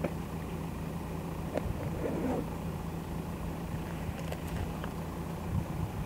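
A vehicle engine idling steadily, a low even hum.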